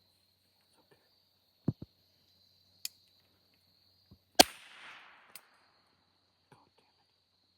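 Musket firing a hang fire: a couple of clicks, a sharp snap of the lock, then about a second and a half later one loud shot with a short rushing tail as the main charge goes off late. Crickets chirp steadily throughout.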